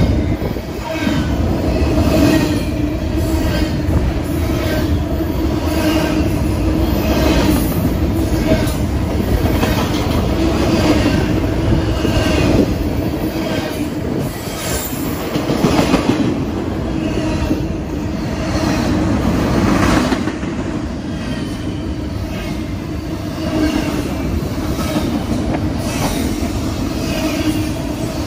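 BNSF double-stack container freight train passing close at speed: loud, continuous rolling noise of steel wheels on rail, with repeated clacks as the car trucks pass over rail joints.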